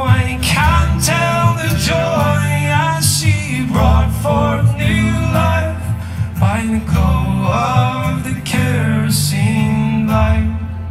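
A folk band plays an instrumental break live through a PA: guitar and bass under a winding melodic lead line.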